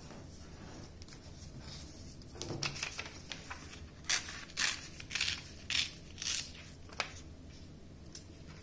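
A sheet of paper being folded and creased by hand on a wooden tabletop: a run of short, crisp rustles and scrapes, roughly two a second, starting a few seconds in and stopping shortly before the end.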